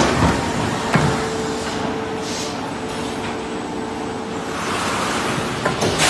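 Plastic egg-tray forming machine running: a steady mechanical hum with a held tone, sharp knocks at the start and about a second in, and more clatter near the end.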